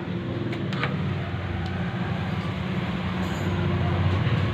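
A powered-up 12 V 30 A battery charger gives a steady low electrical hum that slowly grows louder as it is connected to the battery. A few light clicks come in the first couple of seconds as the crocodile-clip leads are handled.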